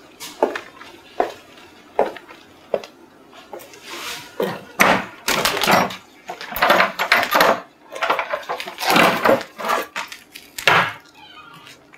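High-heeled footsteps on concrete, a sharp click about every 0.8 seconds for the first four seconds. They are followed by several louder, noisier bursts of handling at a wooden door.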